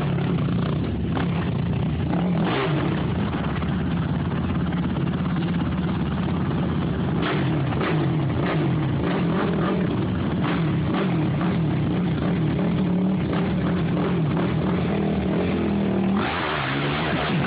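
ATV engine running under load and revving up and down as it climbs a muddy creek hill, with a few sharp knocks scattered through it.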